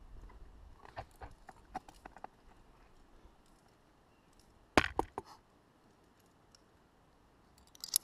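Drytooling ice tool on rock: sharp metallic clicks and knocks as the pick strikes and hooks the stone, a scatter of light clicks early, then a loud cluster of three strikes about five seconds in and another sharp strike near the end.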